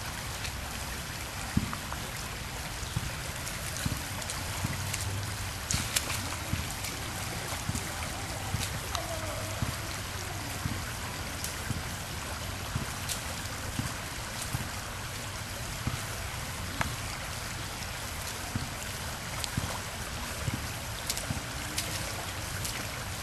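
Steady rushing and trickling of a shallow, rocky creek, with frequent short knocks and splashes from someone wading over the stones.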